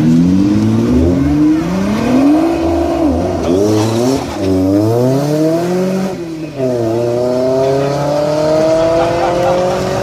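Sports car engine accelerating hard, its revs climbing and dropping sharply several times, then one long steady climb over the last few seconds.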